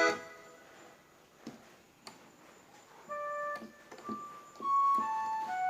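A Korg Pa300 arranger keyboard playing a sampled instrument voice. After about three seconds of near quiet with a few faint clicks, single held notes begin, and a short phrase of notes follows near the end.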